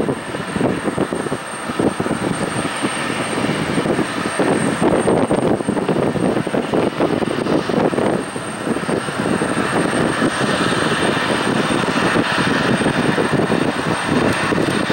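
Twin-engine jet airliner's engines at takeoff thrust as it lifts off and climbs away: a loud, steady, broad rumble with no distinct beat.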